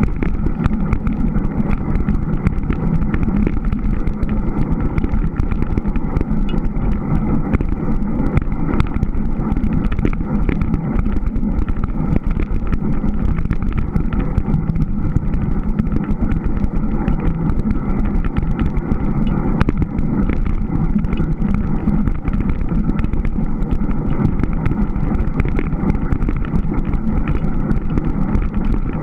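Steady, muffled rumble of a Surly Moonlander fat-bike being ridden over snow, its wide tyres rolling on the snowpack.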